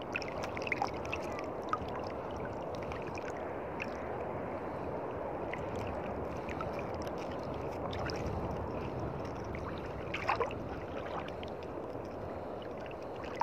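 Choppy sea water sloshing and lapping close by, a steady wash, with scattered small clicks and splashes and a brief cluster of them about ten seconds in.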